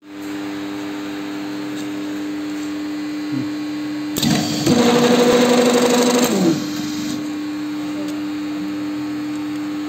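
Spin riveting machine humming steadily; about four seconds in, its spinning riveting head comes down and forms a rivet, a louder whirr with a steady pitch lasting about two seconds, then it drops back to the hum.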